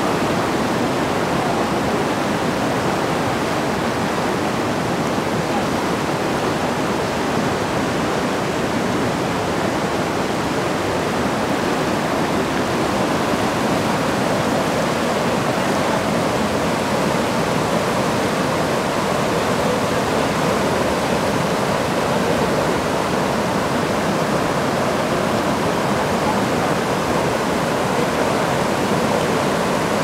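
Shallow mountain river rushing over boulders and pebbles in small rapids: a steady, unbroken rush of water.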